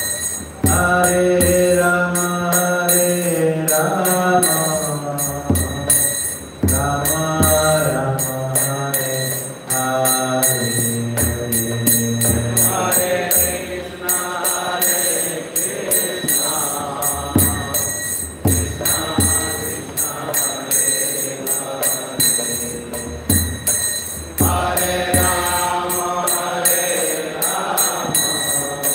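Devotional chanting of a prayer: a man's voice singing long held notes, accompanied by small hand cymbals (kartals) struck in a steady rhythm.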